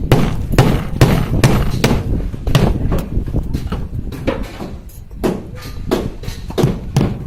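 Repeated hammer blows, about two a second with a short pause in the middle, sharp knocks with a dull thud beneath.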